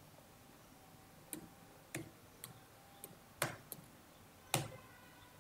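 Computer keys being tapped: about seven sharp, irregular clicks over a few seconds, the loudest two about three and a half and four and a half seconds in.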